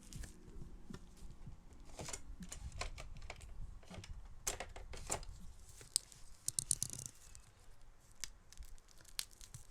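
Handling of packaging: paper or plastic rustling and crinkling, with small tearing sounds and scattered light clicks and taps. The clusters come about two seconds in, around four to five seconds, and near seven seconds.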